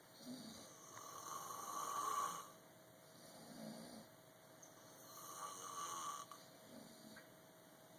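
A person snoring in slow breaths: two long snores about four seconds apart, the first building louder and cutting off sharply, with softer breathing between.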